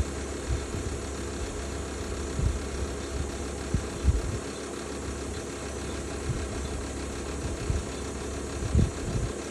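Bosch BOVB-36HDN1-M20G heat pump running with a steady hum and an irregular grinding noise, broken by low knocks every second or two; the pattern changes about halfway through. The owner fears the grinding, which is recent in a unit under a year old, is a fault that will get worse.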